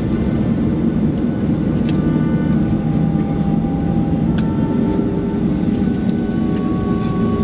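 Boeing 737-800's CFM56 jet engines running at taxi power, heard from inside the cabin: a steady rumble with several faint whining tones that shift in pitch around the middle. There is a light click about four seconds in.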